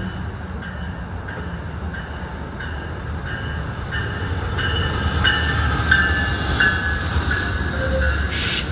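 Amtrak Pacific Surfliner passenger train, a diesel locomotive hauling bilevel cars, rumbling past on the rails. It grows louder about halfway through as the cars roll by, with short high squeaks recurring about twice a second.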